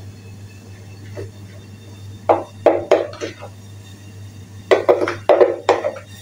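Metal spoon knocking and scraping in a container while scooping ground coffee, in two quick clusters of knocks, about two seconds in and again about five seconds in. A steady low hum runs underneath.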